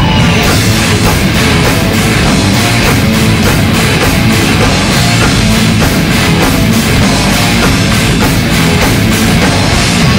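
Industrial metal instrumental passage: heavy distorted guitars over a steady, pounding drum beat, loud and dense throughout.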